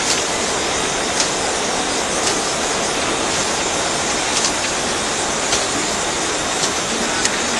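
ST440A saddle stitching machine running: a steady mechanical hiss and rumble with a short, sharp click about once a second as it cycles.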